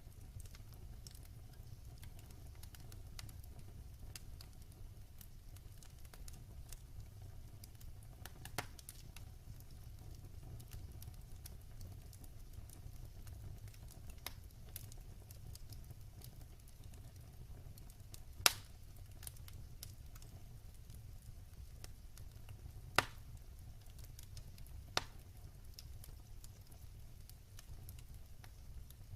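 Wood fire crackling in a fireplace: a steady low rumble of flames under faint, scattered ticking crackles, with four sharper pops, the loudest a little past the middle.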